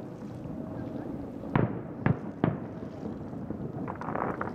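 Distant aerial firework shells bursting: three sharp booms about a second and a half, two, and two and a half seconds in, then a run of faint crackles near the end.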